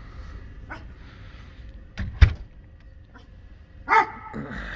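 A dog barking near the end, after two sharp, loud bangs about two seconds in, over the steady low rumble of a diesel shop furnace burning.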